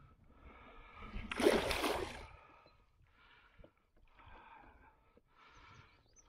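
A hooked musky thrashing at the surface beside a kayak, with one loud splash about a second in, then softer water sounds as it is played on the line.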